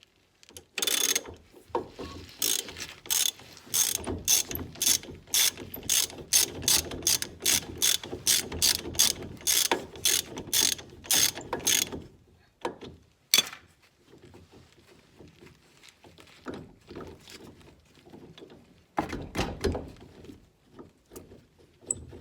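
Hand ratchet wrench clicking in quick repeated strokes, about two to three a second, for roughly ten seconds. A few scattered clicks follow, then a short burst of ratcheting near the end.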